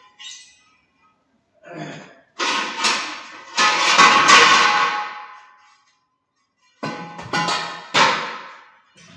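Heavy metal pieces clanging together in two bursts, a handful of sharp strikes around two to four seconds in and again around seven to eight seconds, each ringing on for a second or two.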